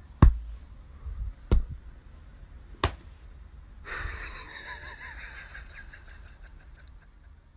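Three sharp knocks about a second and a half apart, then a breathy hiss that starts about four seconds in and slowly fades.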